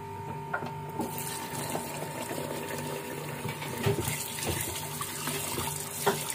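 Tap water starts running about a second in, pouring onto cubed beef in a stainless steel bowl while a hand rubs and turns the wet meat. A few louder splashes and knocks come as the pieces are worked.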